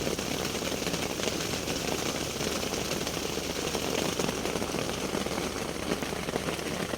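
Steady rain pattering on the fabric of a small tent: a dense, even stream of small drop impacts.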